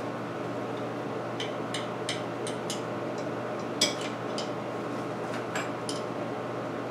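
Small metal clicks and taps as a chainsaw's chain tensioner is taken apart in its plastic side cover with a combination T-wrench, about a dozen irregular clicks with the sharpest near the middle. A steady background hum runs underneath.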